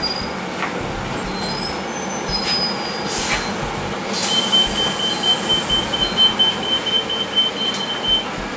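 Bus cabin with a steady engine and ventilation hum. About four seconds in there is a burst of air hiss, then a high electronic beeper pulses about three times a second for roughly four seconds, typical of a bus door warning signal.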